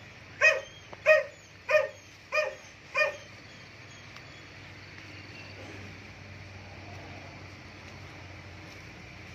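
A dog barking five times in a quick, even series, about one and a half barks a second, then stopping.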